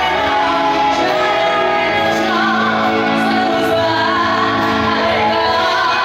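A woman singing into a microphone with a Chinese traditional orchestra accompanying her, including long held notes over the ensemble.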